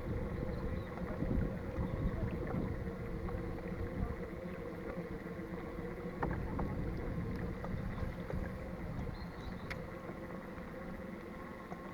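Strong wind buffeting the microphone: a low, uneven rumble, with a faint steady hum and a few small clicks over it.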